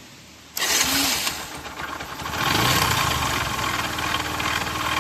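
Bajaj Discover 100's single-cylinder four-stroke engine running with an abnormal, strange noise. It cuts in suddenly about half a second in and gets louder around the middle. The mechanics trace the noise to worn crankshaft bearings and excessive connecting-rod play.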